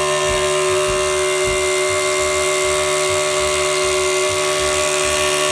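Hilti TE 30-A36 cordless combihammer hammer-drilling into concrete, running steadily, with a dust-extraction vacuum running through its hose attachment.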